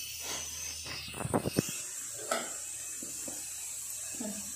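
A cluster of sharp clinks about a second in, then a single clink and a few lighter taps: a metal spoon knocking against a stainless steel mixing bowl while dry flour and spices are stirred. A faint steady hiss runs underneath.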